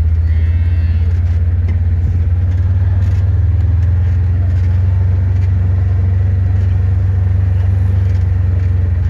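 A vehicle engine running steadily, a loud low rumble, with a brief high-pitched squeak about half a second in.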